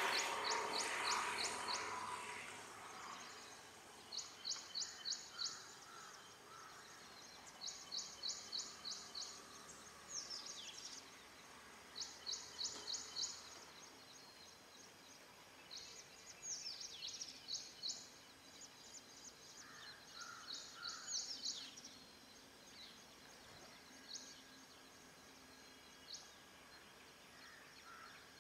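A small bird sings bouts of rapid, high-pitched notes, about seven or eight notes in a second and a half, repeated every four seconds or so. A few bouts end in a downward-sliding note. Fainter, lower calls from other birds come in between, and a rush of noise dies away over the first two seconds.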